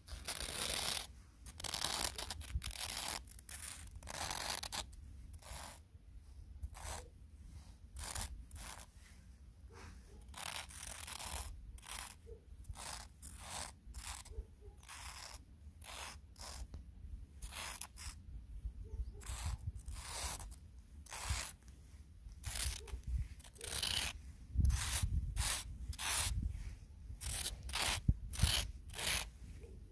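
Footsteps crunching in snow at a steady walking pace, one crunch after another.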